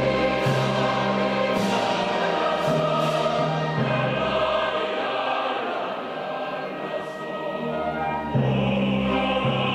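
Background choral music: voices singing long held notes over a slowly changing low line.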